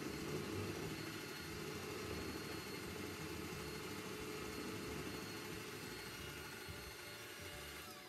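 Bosch PBD 40 drill press running steadily as its bit bores into an MDF board.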